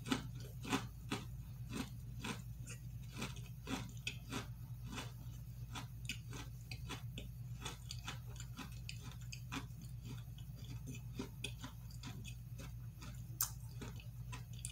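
A person chewing a cookie close to the microphone: a steady run of small crunches, about two a second, over a low steady hum.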